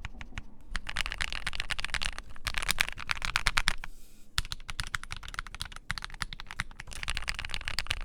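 Fast typing on a modded Keychron Q3 mechanical keyboard with filmed and lubed Akko Matcha Green linear switches: a dense run of keystroke clacks, thinning briefly about four seconds in.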